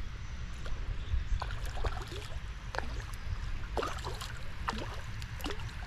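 Hooked brown trout splashing and thrashing at the surface of a small creek in a series of short, irregular splashes, over a steady low rumble.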